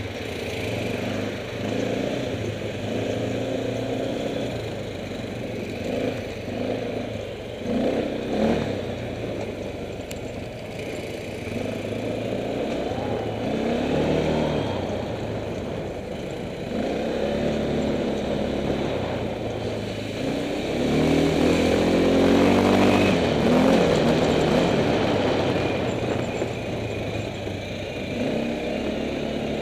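Kymco MXU 500 quad's engine running on the move, its pitch rising and falling with the throttle. It is loudest during a long climb in pitch about two-thirds of the way through.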